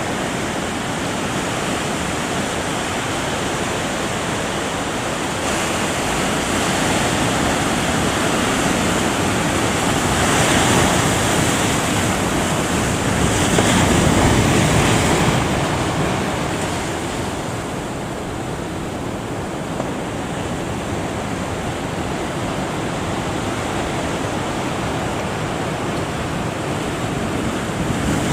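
Ocean surf breaking in a steady wash of noise, swelling louder about ten seconds in and again around fourteen seconds.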